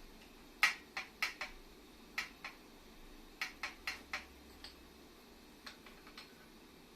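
Metal tools and parts clinking and tapping during hands-on work on an air compressor: about a dozen light, irregular clinks, the loudest a little over half a second in.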